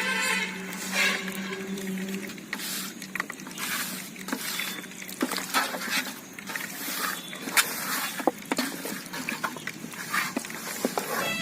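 Whole chicken frying in hot oil in a pan, crackling and spattering, with irregular clicks and knocks from the utensil turning it.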